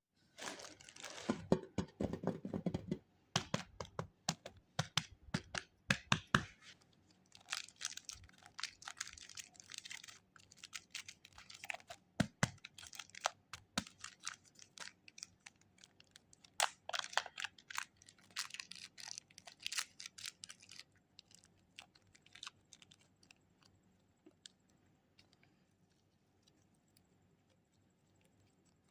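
Super clay wrappers being crinkled and torn open by hand, in bursts of sharp crackles and clicks; after about twenty seconds only faint taps remain.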